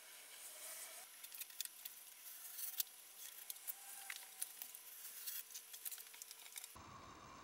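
Faint, irregular light crackling and clicking from work on iron-on melamine edge banding, with one sharper click about three seconds in. The sound cuts off suddenly near the end into a steady hiss.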